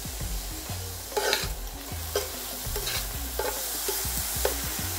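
Chopped carrot, beans and chilli sizzling in hot oil in a pan while being stirred, with about five short scraping strokes against the pan.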